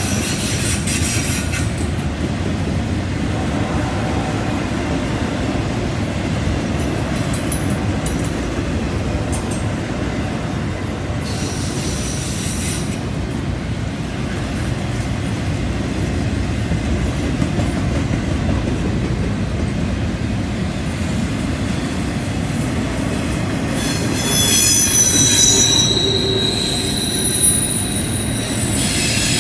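Double-stack intermodal well cars of a freight train rolling past with a steady rumble. The wheel flanges squeal on the curve in high thin tones, strongest near the end.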